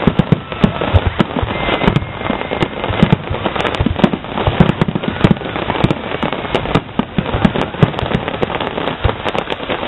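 Aerial fireworks shells bursting in rapid, overlapping succession: a dense, unbroken run of bangs and crackling pops.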